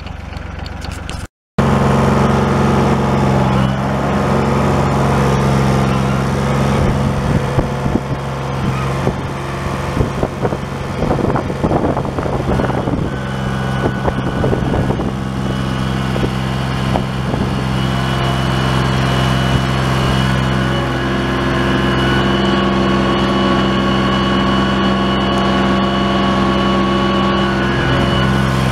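John Deere 1050 compact tractor's three-cylinder diesel engine running steadily, heard from close by on the tractor while it pulls a plow through the soil. There is a stretch of knocks and rattles in the middle.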